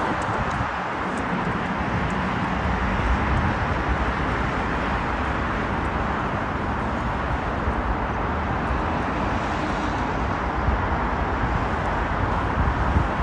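Steady road traffic noise, with wind rumbling unevenly on the microphone.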